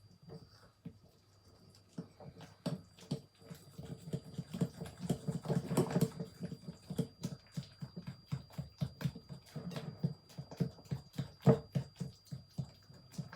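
Pancake batter being beaten by hand in a bowl, the utensil knocking against the bowl at about four strokes a second. The strokes are sparse for the first couple of seconds, then settle into a fast, even rhythm.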